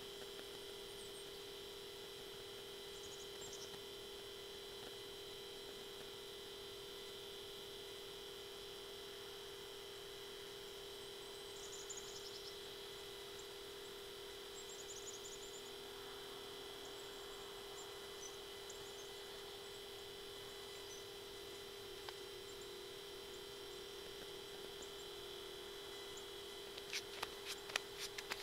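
Faint steady hum made of two constant tones, one low and one high. Near the end a quick run of clicks starts.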